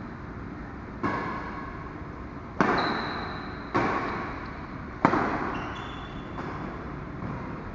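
Badminton rackets striking a shuttlecock in a doubles rally: five sharp hits, roughly one every second to second and a half, each ringing on in the hall's echo. Short high squeaks from shoes on the court come between the hits.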